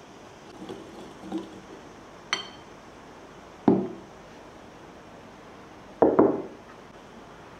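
Wire whisk stirring dry flour and ground almonds in a glass bowl, then a short ringing clink of the whisk against the glass. A glass bowl and then a Pyrex glass measuring jug are set down on a wooden worktop, each with a dull knock; the jug's knock is the loudest and doubled.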